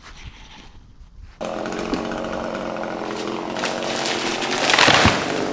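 A chainsaw starts in abruptly about a second and a half in and runs steadily, growing louder and harsher near the end as it is worked on deadwood.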